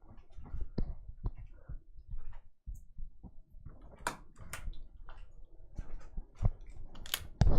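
Small hand tools being handled while a screwdriver is picked out: irregular light clicks and knocks, with a few sharper clicks about four seconds in and again near the end.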